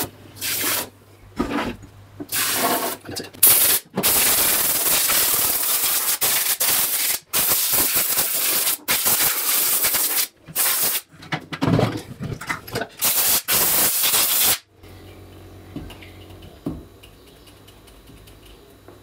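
Compressed-air blow gun hissing in a series of blasts, some short and some several seconds long, blowing water off a freshly washed coffee grinder housing to dry it. The blasts stop about fifteen seconds in.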